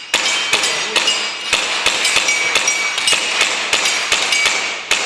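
Rapid string of gas-blowback airsoft pistol shots, several a second, mixed with metallic pings of BBs striking steel targets that ring briefly.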